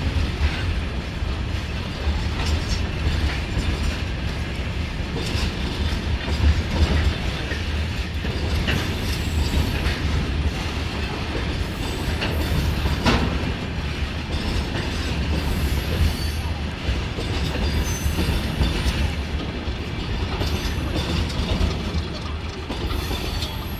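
Freight train rolling past: a steady low rumble with wheels clacking over rail joints.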